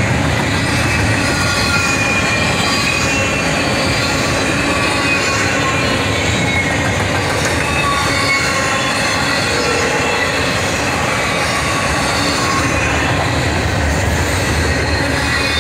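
Double-stack intermodal freight cars rolling past at speed: a steady, loud rumble of steel wheels on rail, with thin wavering squeal tones from the wheels over it.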